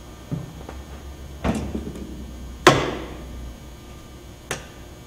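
Tools being handled and set down on a wooden workbench: a soft thump, a knock, a louder sharp knock with a short ring just under three seconds in, and a sharp click about a second and a half later.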